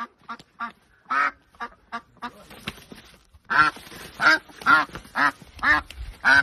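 Domestic duck quacking repeatedly: a few soft quacks at first, then a run of loud quacks about two a second in the second half.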